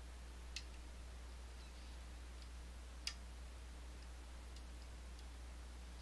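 Faint small metallic clicks from lock picks and tension bar working an Assa Twin Exclusive high-security lock: a sharp tick just over half a second in, a louder one about three seconds in, and a few fainter ticks between.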